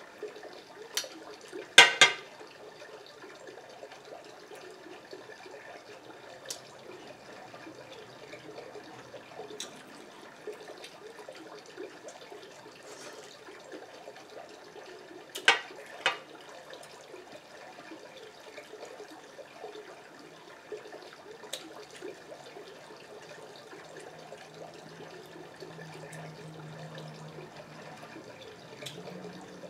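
Close-up eating sounds: wet chewing and hands and a fork picking through a plate of seafood boil. A few sharp clicks stand out, the loudest pair about two seconds in and another around fifteen seconds in.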